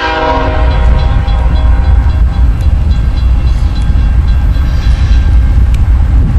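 Multi-tone air horn of an approaching CSX AC6000CW diesel locomotive, its chord ending about a second in. A loud, steady low rumble follows.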